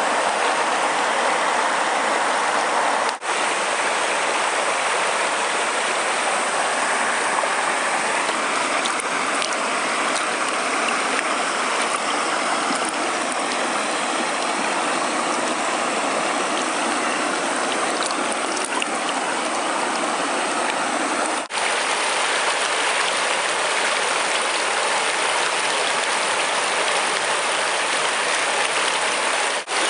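River water rushing steadily over rocks in a shallow rapid, broken by a few brief dropouts.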